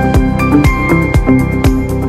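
Electronic background music with a steady beat, about two beats a second, under sustained synth notes.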